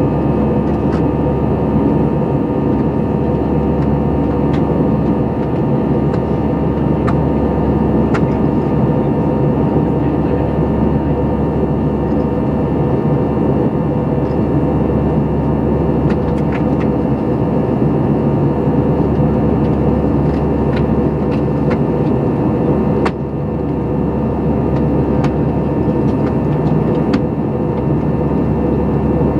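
Steady drone of an airliner's engines and airflow heard inside the cabin in flight, with a few faint clicks.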